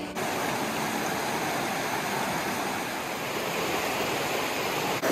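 Mountain creek rushing steadily over rocks, with an even, unbroken splash and hiss of flowing water.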